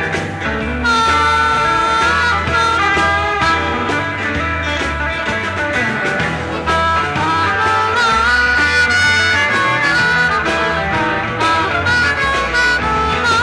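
Live psychedelic blues band playing an instrumental passage: a harmonica wails long, bent notes over pulsing bass and electric guitar.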